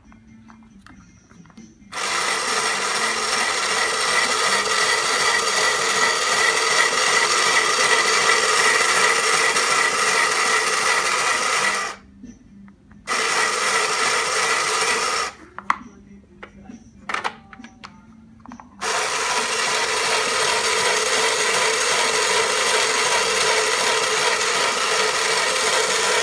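Vintage Sears toy sewing machine running in three stretches: about ten seconds, then a short run, then a long steady run. Between the second and third runs come a few sharp clicks.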